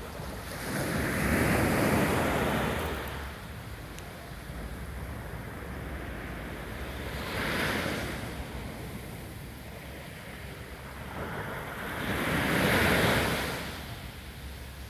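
Small waves from a calm sea breaking and washing up a sandy beach, with a constant wash. The surf swells three times: once about a second or two in, more softly near the middle, and loudest near the end.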